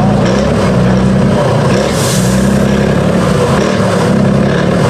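Tatra 813 8x8 truck's diesel engine running loud and steady under load as the truck crawls up a steep muddy bank, with a brief hiss about two seconds in.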